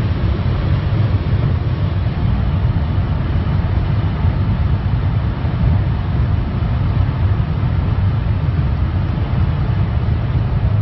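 A BMW X6 cruising at about 230 km/h, heard from inside the cabin: a steady low rumble of engine, tyres and wind noise.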